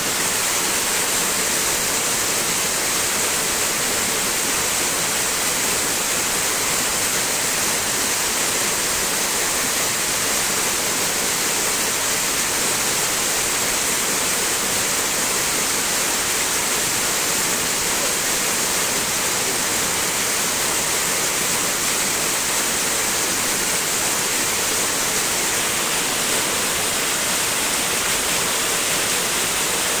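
Small waterfall spilling over mossy rock into a shallow pool: a steady rush and splash of falling water.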